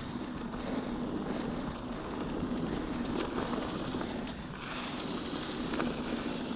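Mountain bike rolling along a dirt singletrack: steady tyre and drivetrain noise with some wind, a faint even hum underneath and a few light ticks.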